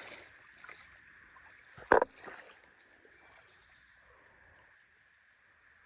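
Steady rush of creek water, with one sudden loud thump about two seconds in.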